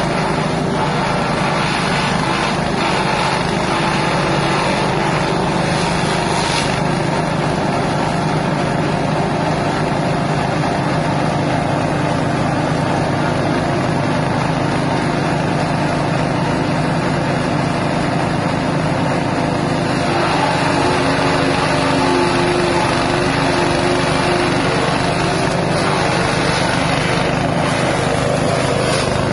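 Grass chopper driven by a 6.5 HP petrol engine, running steadily at speed; its note shifts and gets a little louder about twenty seconds in.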